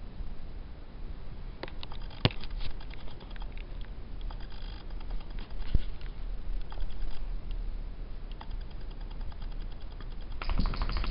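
A New Guinea singing dog puppy chewing a toy and shifting on a couch cushion: scattered soft clicks and rustles over a low steady rumble, with a louder rustling burst near the end.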